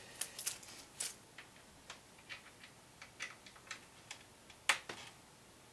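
Small clicks and taps of a laptop power adapter's plug and cable being handled and pushed into the charging port on the side of an Asus X541U laptop, with one sharper click about three-quarters of the way through.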